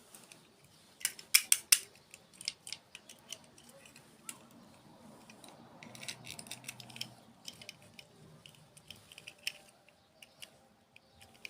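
Close-miked eating of crunchy desserts: sharp, crisp crunches and clicks. A cluster of four loud ones comes about a second in, followed by scattered softer crunches.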